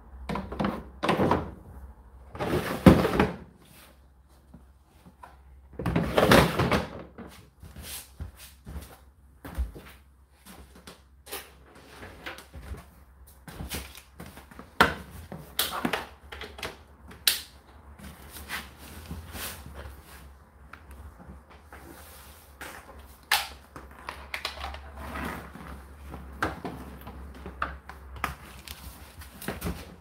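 Clothes being put by hand into a tumble dryer drum: two rustling swishes of fabric near the start, then scattered light clicks and knocks over a steady low hum.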